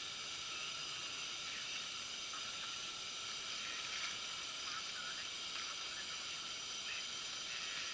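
Steady hiss.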